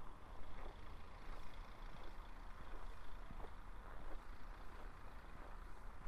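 Footsteps crunching crisply on frozen snow, over a steady low rumble of distant road traffic.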